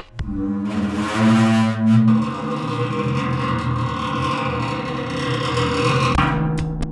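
Sustained, distorted-sounding metallic drone from a dismantled household appliance: one long pitched tone over a noisy rasp that fades out about six seconds in.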